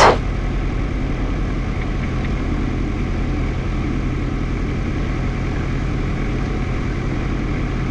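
Single-engine light aircraft's piston engine idling on the ground with the propeller turning, heard steadily from inside the cockpit.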